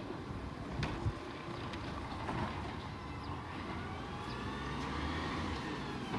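McNeilus ZR side-loader garbage truck running in the distance, a steady low engine rumble with a whine that rises in pitch over the last few seconds.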